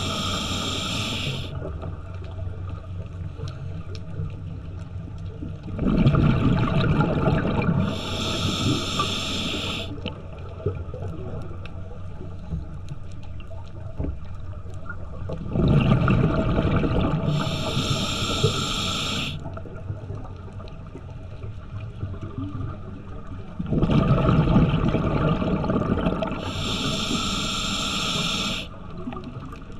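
A scuba diver breathing through a regulator underwater: each breath is a roughly two-second burst of low, rumbling exhaust bubbles, then a high hiss of air through the regulator. The breaths come about every nine seconds, three times here, with steady low water noise between them.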